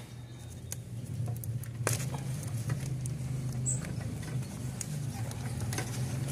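Scattered small clicks and taps of hand work on the engine's fuel injectors and their connectors, over a steady low hum.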